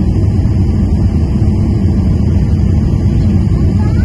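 Steady low rumble inside a jet airliner's cabin on approach: engine and airflow noise heard from a seat over the wing, with the flaps down.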